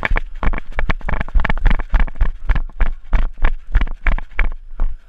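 Running footsteps with the jolting of a body-worn action camera and kit: a rapid, uneven series of thuds, about four a second.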